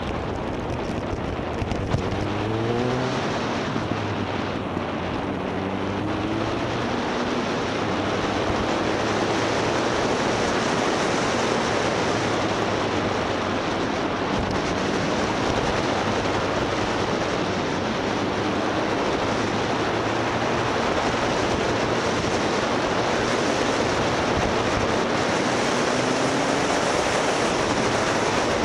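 Motorcycle on the move: steady wind rush on the microphone covers most of the sound, with the engine heard underneath, its note rising as it revs up about two seconds in, again around five seconds in, and near the end.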